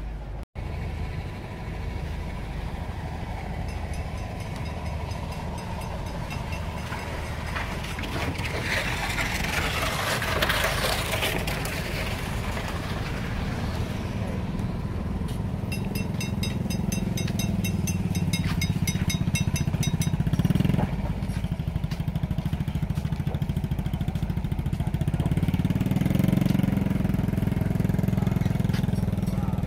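Outdoor traffic sound dominated by small motorcycle engines. One passes about a third of the way in, and an engine runs steadily and close by through the later part. A brief run of high, rapidly repeated beeps sounds around the middle.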